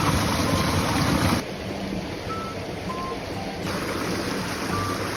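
Rushing water of a multi-tiered forest waterfall, a steady noisy rush that drops in level about a second and a half in and comes back up near the end.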